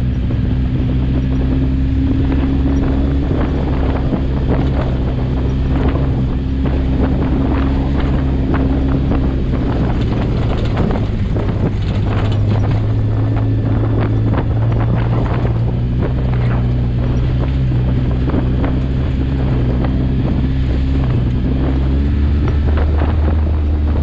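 Off-road vehicle engine running at a steady trail speed with small rises and dips in pitch, over constant crackling and rattling from the tyres on a gravel dirt trail and wind on the microphone.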